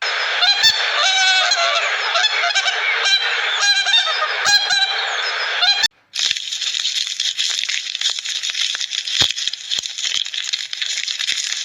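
Geese honking, in two clips joined by a cut about six seconds in. The second clip is a denser, noisier flock chorus.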